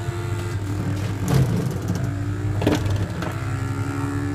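The sound unit of an RG Mitchell Toytown police car kiddie ride playing a synthesized 8-bit motorbike engine: a steady electronic buzz with a low drone whose pitch steps a couple of times, and two sharp knocks about a second and a half apart. The ride is playing the Mitchell Motorbike sound set instead of its own police car sounds.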